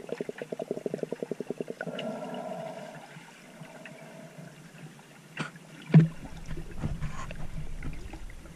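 Underwater sound picked up by a submerged camera: a rapid run of clicks, about twelve a second, for the first second and a half, then a few sharp knocks and a thump about six seconds in, followed by a low, rough sloshing rumble.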